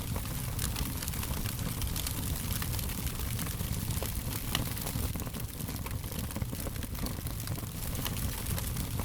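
Fire crackling: many small, irregular pops and snaps over a steady low rumble.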